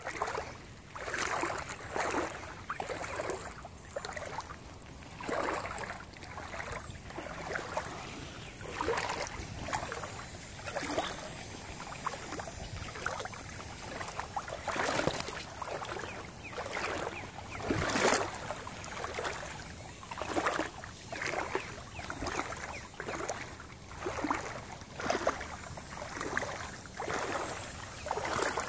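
Water sloshing and splashing in a steady rhythm of about one splash a second, as someone wades through shallow floodwater.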